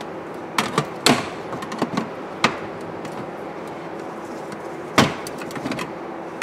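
A scattering of sharp plastic clicks and knocks as a screwdriver pries at the clipped-in black plastic shifter trim panel of a Honda Civic's centre console. The loudest click comes about five seconds in.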